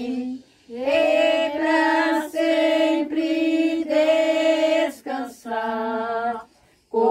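A small group of women singing an old Portuguese-language hymn a cappella. It goes in long held notes, with short breaks for breath about half a second in and near the end.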